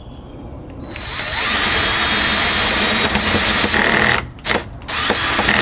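Cordless drill boring out a stripped screw hole in a wooden fence gate with a large wood bit, enlarging it to take a wooden dowel plug. The drill runs steadily for about three seconds, then stops and starts in short bursts near the end.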